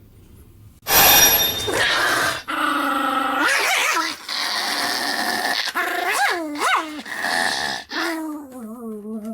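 Pomeranian snoring heavily: about five long breaths in a row, each a drawn-out, growl-like tone that bends up and down in pitch, with sharp rising squeaks near the middle.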